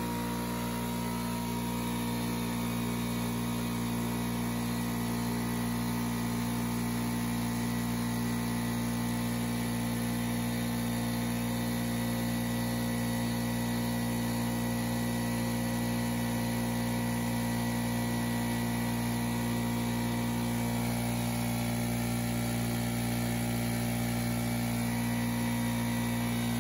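Craftsman 5 hp oil-free air compressor's electric motor and pump running continuously with a steady hum, not cutting out: the motor now rewired for 220 V runs normally instead of tripping after a few seconds.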